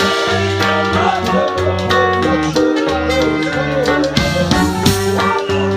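Live band music: electric keyboard chords, electric bass and drum kit, with a wavering trumpet melody over the top.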